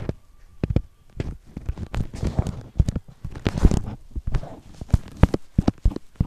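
Irregular taps and knocks, a few each second, with light rustling between them: handling noise from fingers tapping and holding a tablet close to its microphone.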